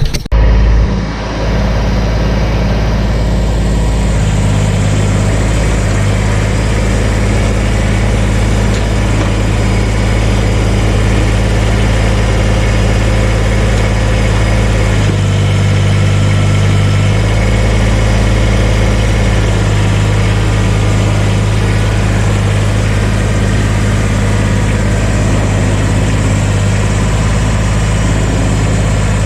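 An engine running steadily, its note shifting for a couple of seconds about halfway through.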